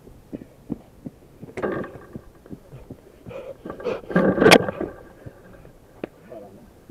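Knocks and muffled thumps close to a small action camera's microphone, the loudest burst about four seconds in as a person comes right up against the camera, with a sharp crack in the middle of it.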